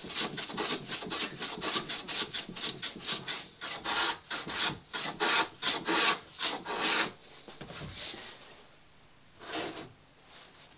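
Hand plane shaving the scarf bevel on a plywood planking strake in quick short strokes, about three or four a second. The strokes stop about seven seconds in, with one more stroke near the end.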